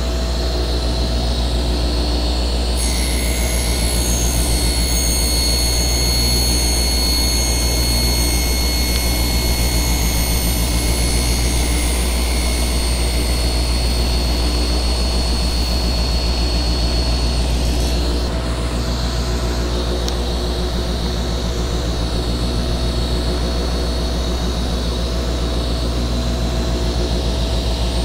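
Table saw motor and blade running with a steady low hum, the upper sound shifting slightly a few times.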